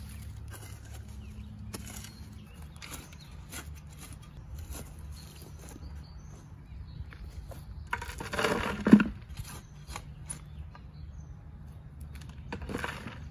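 Metal shovel scraping and scooping ash and charcoal in a fire pit. The loudest scrape comes about nine seconds in and ends in a sharp knock. Near the end there is a shorter rush as a shovelful of ash is tipped into a plastic bucket.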